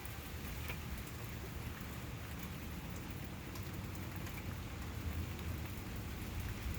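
Steady heavy rain falling during a thunderstorm, a constant hiss with scattered drop ticks.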